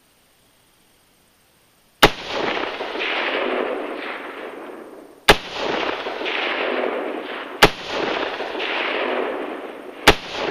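Four AR-15 rifle shots, each a sharp crack followed by a long rolling echo, a few seconds apart. They miss the Tannerite target, so there is no explosion.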